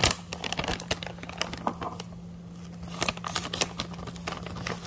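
Plastic Pedigree Dentastix treat pouch crinkling as it is handled, in irregular crackles that are busiest at the start and again about three seconds in.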